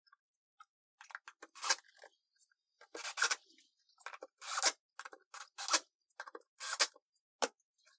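Cordless drill-driver driving screws into MDF in a series of short trigger bursts.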